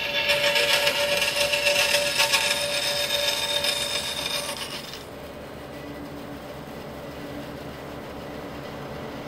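Bandsaw cutting through a metal strip, a loud harsh rasp over the saw's steady running tone. About five seconds in the cut finishes and the bandsaw runs on with a quieter steady hum.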